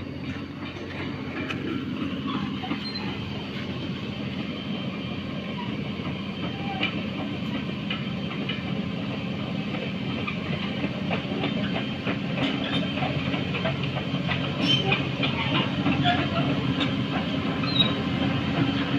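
Caterpillar 312 hydraulic excavator's diesel engine running steadily under load, with scattered metallic clicks and short squeaks from the working machine, getting a little louder in the last few seconds.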